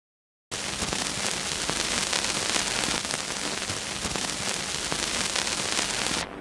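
Dense crackling hiss full of fine clicks, over a faint steady low hum. It starts abruptly about half a second in and cuts off sharply at the end.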